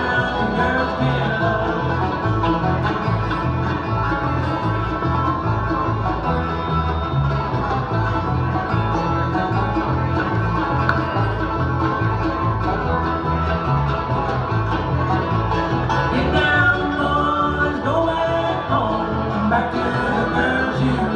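Bluegrass music: banjo and guitar over a steady bass beat.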